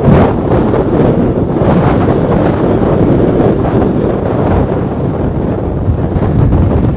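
Strong wind buffeting the microphone: a loud, gusting low rumble with no clear engine note in it.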